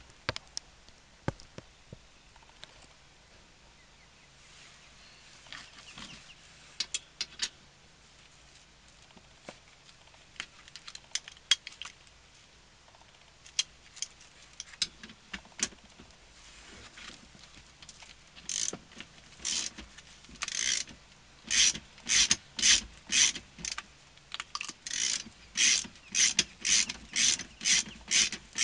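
Socket ratchet clicking as it turns the T50 Torx bolt holding a semi truck's seat belt buckle. Scattered clicks and handling knocks at first, then about two-thirds of the way in steady back-and-forth ratchet strokes begin, getting quicker near the end.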